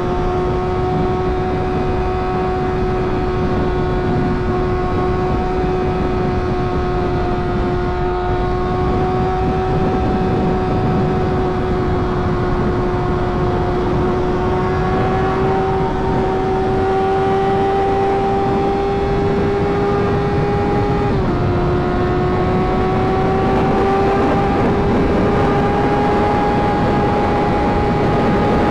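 Sportbike engine running at a steady, high drone while riding, over a constant rushing noise. The pitch creeps slowly upward and drops slightly about 21 seconds in.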